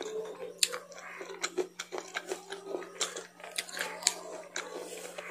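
Close-miked chewing of crunchy food with the mouth closed: irregular sharp crunches and wet mouth clicks over a faint steady low hum.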